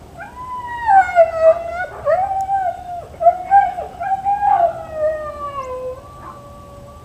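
A dog howling: a long wavering howl with short breaks, sliding up and down in pitch. It is loudest through the first five seconds, then drifts lower and carries on more softly.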